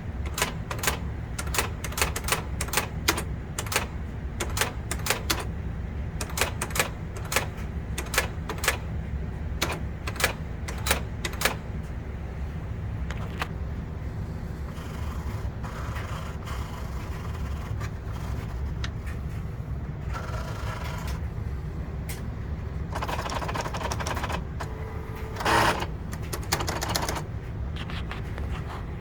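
Brother Correctronic GX-6750 electronic daisy-wheel typewriter printing: a run of sharp, irregular print strikes, several a second, for about the first twelve seconds. Then come several stretches of mechanical whirring from the carriage and mechanism, with one louder burst near the end, over a steady low hum.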